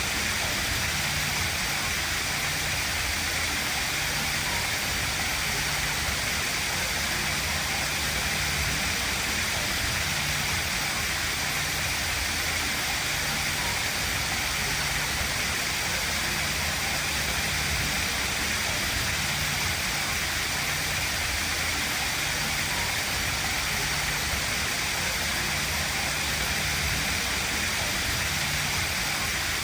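Steady rushing noise, unchanging throughout, with a low hum underneath that switches on and off.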